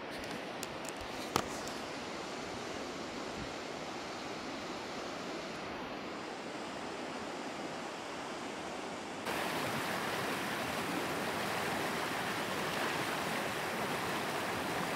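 Steady rush of a river's flowing water, with a few light clicks in the first second and a half. About nine seconds in it jumps abruptly to a louder, brighter rush of water.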